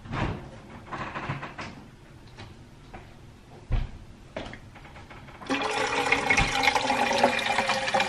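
Water poured from a pitcher into a Nespresso machine's clear plastic water tank, splashing and filling steadily from about five and a half seconds in. Before that, only a few light knocks.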